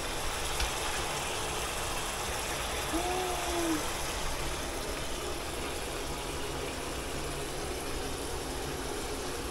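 Pieces of lamb cooking in a pot on a gas stove: a steady sizzling hiss. A short hum from a person about three seconds in.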